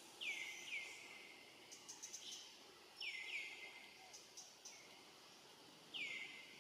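A bird calling, with short downward-sliding whistled notes in pairs, first near the start, again about three seconds in, and a single one near the end, over faint outdoor background noise and a few soft ticks.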